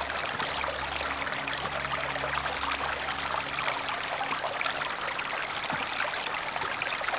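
Shallow forest stream running over stones: a steady rush and trickle of flowing water.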